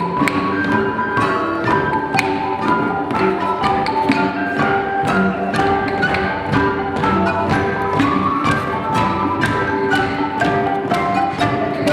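Instrumental ensemble music: a busy stream of short struck notes, several a second, over sustained pitched notes, played at a steady level.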